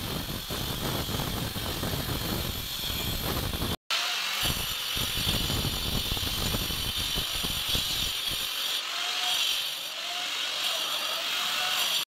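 Handheld angle grinder with a cutting disc slicing grooves into a plastered masonry wall: a steady, high grinding whine that cuts out briefly about four seconds in.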